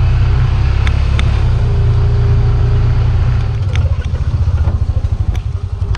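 Loud low rumble of wind buffeting the microphone, turning into a rapid flutter about halfway through.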